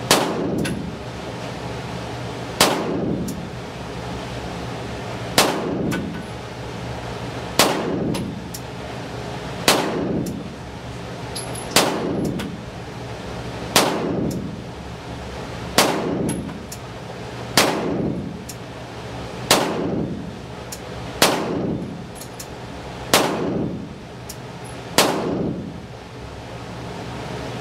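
Beretta 92FS Compact L INOX 9mm pistol firing 13 single shots, about two seconds apart, each followed by a ringing echo: a full 13-round magazine fired at a slow, steady pace with 115-grain full metal jacket rounds.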